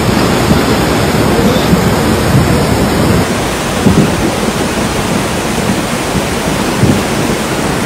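Loud, steady rush of a muddy flood torrent, heavy with a deep, low rumble of churning water.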